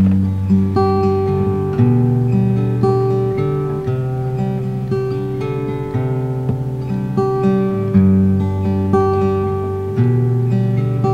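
Background music on acoustic guitar: plucked notes and chords ringing out, a new one starting about every second.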